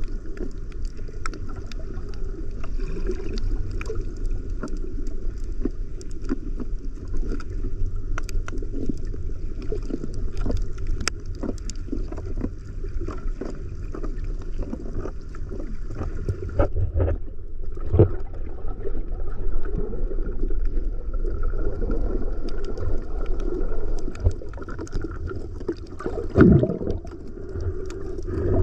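Underwater sound picked up by a snorkeller's camera: a muffled low rumble of moving water with scattered small clicks and crackles, and a couple of louder knocks, one partway through and one near the end.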